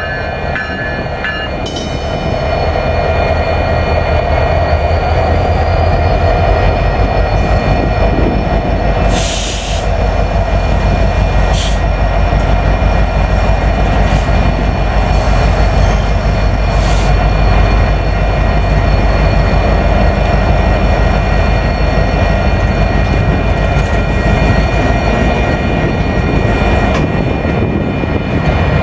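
BNSF EMD SD70ACe diesel-electric locomotives rolling slowly past at close range, their engines making a loud, steady low rumble with a high whine over it. A few short hisses cut through near the middle.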